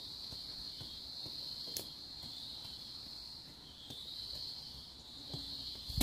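Steady high-pitched insect chorus, swelling a little after the middle. Over it come a few faint knocks of a hoe striking the soil, the clearest one just under two seconds in.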